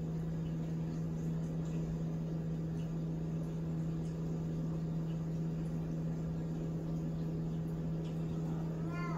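Steady low electrical or mechanical hum with one strong droning tone, from an appliance or fan running in the room, with a few faint soft ticks over it. Near the end a brief pitched squeak sounds.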